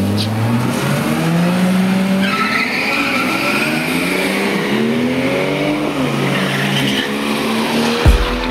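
Toyota Supra doing a burnout: the engine is held at high revs while the rear tyres spin, with tyre squeal starting about two seconds in. A brief thump near the end.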